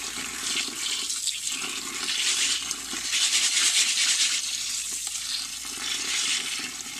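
Kitchen tap water running into a glass bowl of lentils as they are rinsed and stirred by hand: a steady splashing hiss that swells and eases a little.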